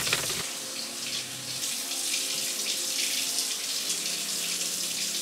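Kitchen faucet running steadily into the sink while raw chicken is rinsed under it.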